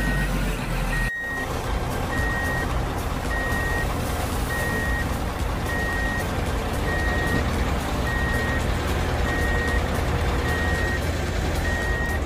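Truck reversing beeper sounding steadily, single high beeps a little over a second apart, over a steady low engine rumble.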